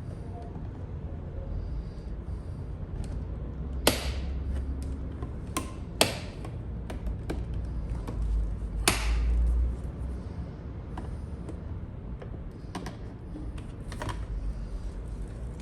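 Plastic door trim pried with a trim removal tool: scraping and handling noise with sharp plastic clicks and snaps, three of them loudest about four, six and nine seconds in.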